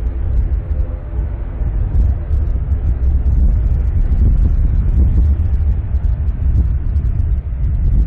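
ATR 42-600 turboprop airliner running as it moves along the ground, its engine and propeller drone mixed with a heavy, gusty wind rumble on the microphone. The rumble swells over the first couple of seconds and then stays loud.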